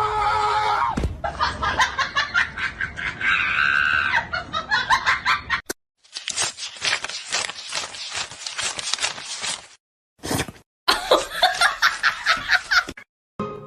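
People laughing in quick, pulsing bursts, cut off abruptly several times.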